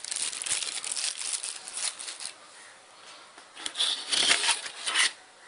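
A clear plastic zip bag crinkling as it is handled, then a quieter stretch, then a louder burst of rustling and handling noise a bit under four seconds in, lasting about a second and a half.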